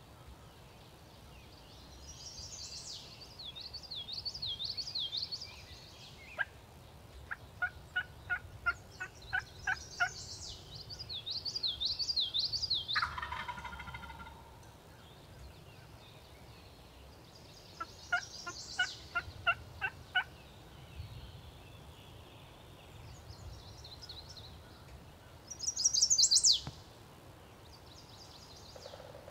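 Wild turkey calling: two runs of about eight evenly spaced yelps, with a short gobble-like call between them, while songbirds sing high warbling phrases. A loud, high, falling bird call comes near the end.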